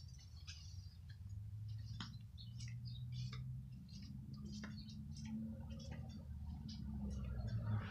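Outdoor yard ambience: scattered short chirps and ticks over a low steady hum, with a vehicle's noise rising near the end.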